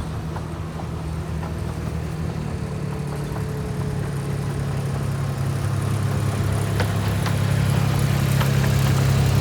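A miniature railway locomotive's engine running steadily, growing gradually louder as it draws nearer.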